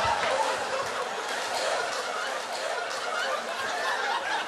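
Stand-up comedy audience laughing.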